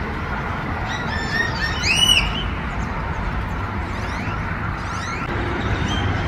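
Dense chorus of a huge flock of birds calling all at once, with a couple of rising-and-falling whistles about two seconds in, over a low rumble of traffic.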